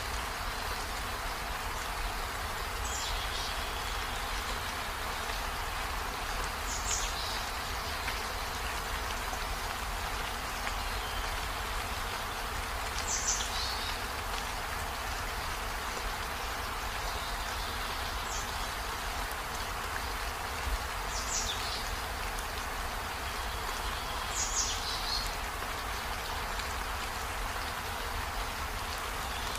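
Steady hissing background noise, with a short high chirp that falls in pitch every few seconds, six in all.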